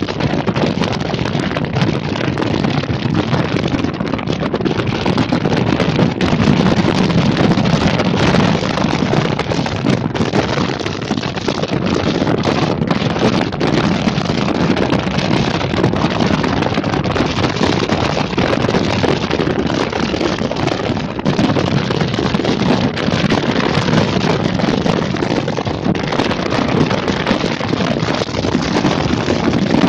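Steady wind rushing and buffeting over the microphone, with the low rumble of a moving vehicle underneath.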